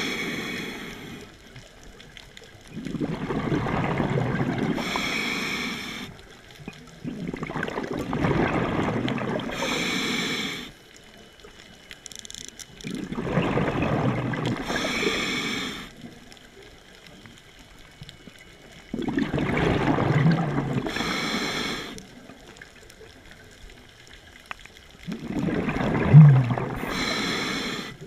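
Scuba diver breathing through a regulator underwater: five slow, even breaths, each a rush of air through the regulator and a gurgle of exhaled bubbles, about every five to six seconds.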